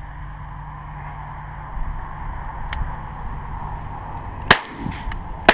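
Two shotgun shots about a second apart, fired at pigeons over steady wind noise on the microphone.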